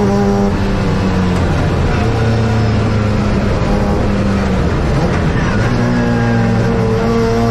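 Saloon race car's engine heard from inside the cabin at racing speed, running hard at fairly steady revs. About four to five seconds in the engine note dips and breaks up briefly, then climbs again as the car pulls away.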